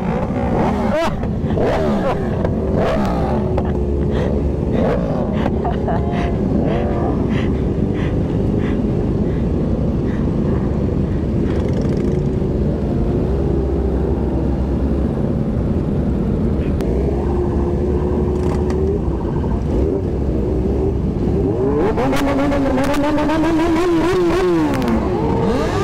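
Several motorcycle engines running and revving while riding at speed, their pitch rising and falling with the throttle over a steady low rumble. The revving is most prominent near the end.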